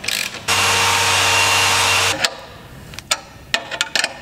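Ratchet wrench clicking as the clamp on an exhaust tip is tightened. About half a second in, a loud steady motor whine starts, runs for about a second and a half and cuts off suddenly, and the ratchet clicks go on after it.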